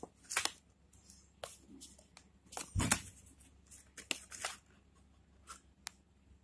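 Handling noise of a hand brushing over the recording phone and the paper poster: scattered rustles and clicks, with one louder thump about three seconds in, settling down near the end.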